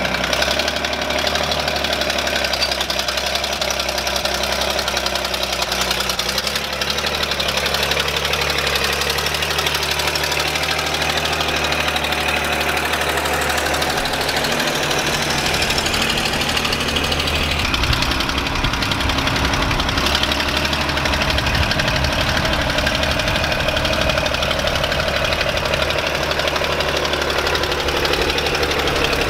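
Allis-Chalmers D19 tractor's engine running steadily; about two-thirds of the way through, its low rumble grows stronger and more pulsing.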